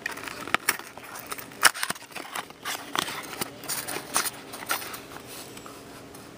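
Hands sliding a trading card in a hard plastic holder out of a box: a run of irregular clicks, knocks and scrapes of plastic against the box.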